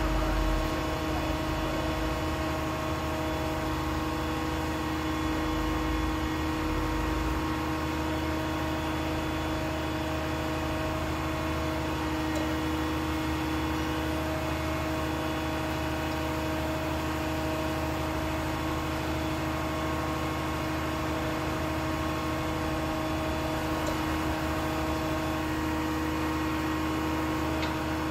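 Concrete boom pump truck's engine and hydraulics running steadily while the boom unfolds, a constant droning hum with a deep rumble that eases about seven seconds in.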